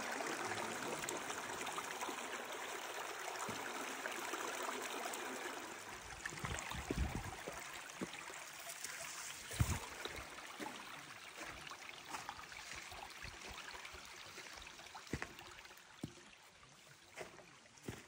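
Shallow mountain stream trickling and gurgling over rocks, loudest in the first few seconds and fading after about six seconds. A few short low thumps, the loudest about ten seconds in.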